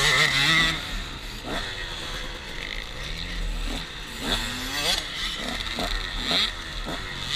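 Two-stroke motocross bikes running close by: a KTM 125 SX idling while other motocross bikes rev up and down on the track, their engine pitch rising and falling several times.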